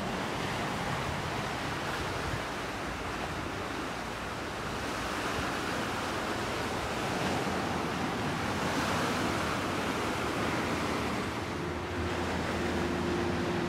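Steady outdoor rush of wind and water along the shore, swelling slightly in the middle. A faint steady hum joins in near the end.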